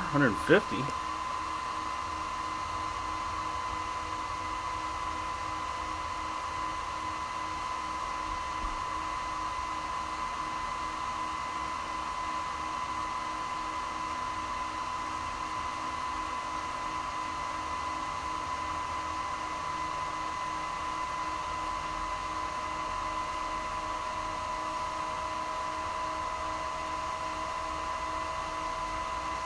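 Steady electronic whine with a fan-like hum from a blue DPSS laser's power supply and cooling, running while the laser warms up and its temperature control is still adjusting. A fainter tone slowly rises in pitch over the last several seconds.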